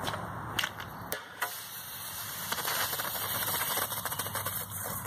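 A few sharp clicks, then a 12-gram CO2 cartridge hissing and crackling out of a homemade PVC launcher tube for about three seconds: a dud that vents its gas instead of launching.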